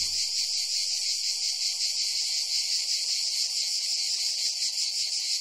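A steady chorus of insects, a dense high-pitched buzzing that goes on without a break.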